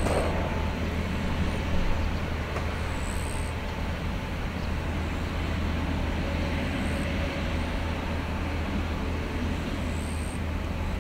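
Airbus A350-900 taxiing, heard from on board: a steady low rumble with an even hiss over it. A few short, faint high chirps come and go.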